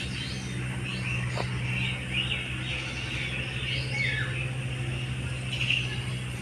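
Birds chirping and calling again and again over a steady low engine hum.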